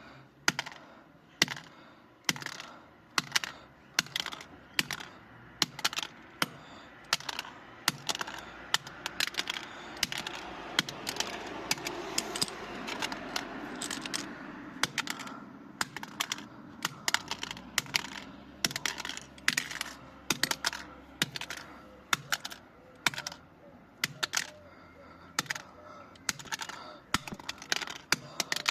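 A wrench striking a plastic cordless home phone over and over, sharp cracks and clacks about once a second, some coming in quick pairs.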